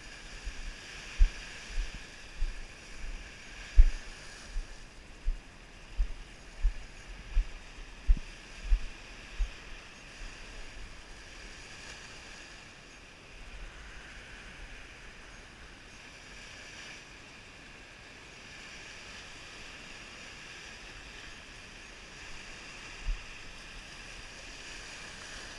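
Walking footsteps thudding on a sandy path, about one and a half a second, for the first ten seconds. After that, small lake waves wash steadily on a pebbly shore, with light wind, and there is one more thud near the end.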